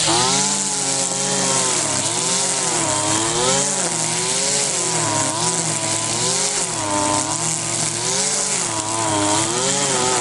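Kawasaki two-stroke string trimmer running at high throttle as its line cuts grass, the engine pitch rising and falling over and over. The spool is spinning and the engine running normally, the worn drive-shaft splines now packed out with a piece of wire.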